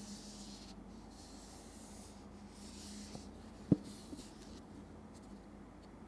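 Packaging being handled: four soft rubbing, sliding strokes, with one sharp tap a little past the middle.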